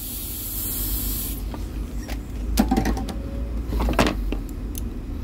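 Hot air rework station blowing through its small nozzle, a hiss that cuts off about a second and a half in. Then several clicks and knocks as the loosened MOSFET is worked and pulled free of the board, over a steady low hum.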